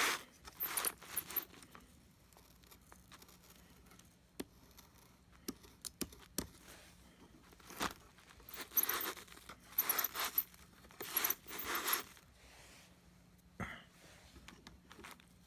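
A hand pulling and scraping tangled hair and lint off a Hoover WindTunnel vacuum's bristled brushroll: scratchy bursts about a second in and again for several seconds past the middle, with scattered sharp clicks between.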